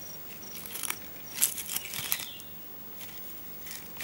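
Patas monkey feeding in thorny whistling-thorn acacia twigs: crisp crunching, crackling and rustling in short irregular clicks, the loudest about a second and a half in. A faint high chirp repeats in the first second or so.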